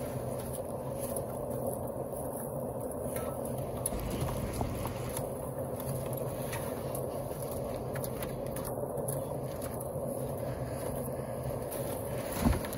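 A concrete mixer's small engine runs at a steady drone throughout, with faint clicks of buckets being handled. A single low thump stands out near the end.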